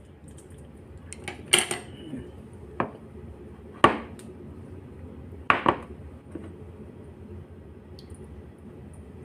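Kitchen dishes and utensils knocking and clinking: a handful of separate sharp clinks, spaced a second or more apart.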